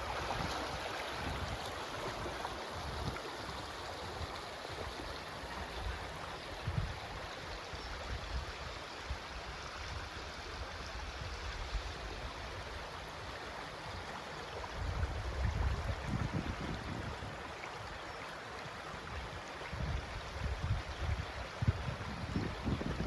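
Steady rush of flowing water, with low rumbling gusts now and then that grow stronger after about fifteen seconds and again near the end.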